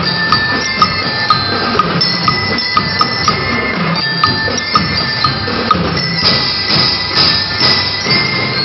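Drum and lyre band playing: bell lyres ring held notes of a melody over marching drums, with sharp drum strokes about twice a second. Noisier crashing strokes come in from about six seconds in.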